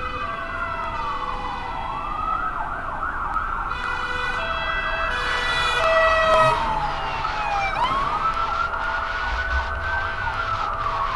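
Wailing sirens, two or more overlapping, each rising and falling slowly over several seconds, with steady held tones beneath them.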